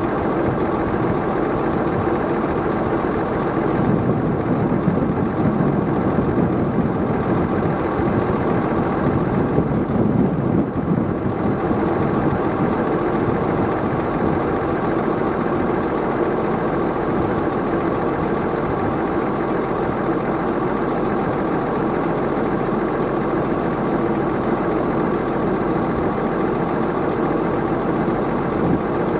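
Tractor engine and Kuhn i-BIO+ round baler-wrapper running steadily while baling, the sound swelling slightly a couple of times in the first half.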